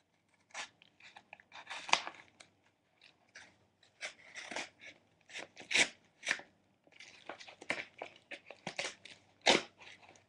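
A paper mailing envelope being cut and torn open by hand: irregular crinkling and ripping of paper, with a few sharper, louder crackles.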